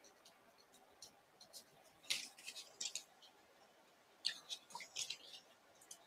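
Scissors snipping through cardstock, cutting out a stamped flower image. There are two short runs of quick snips, one about two seconds in and another about four seconds in.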